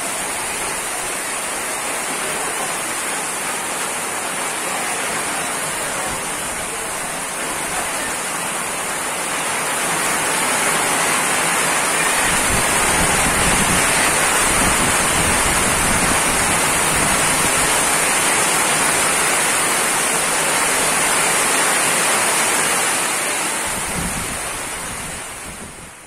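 Heavy rain pouring down onto corrugated metal roofs and wet ground in strong wind. It grows louder about ten seconds in, with wind buffeting the microphone as a low rumble, and fades out at the end.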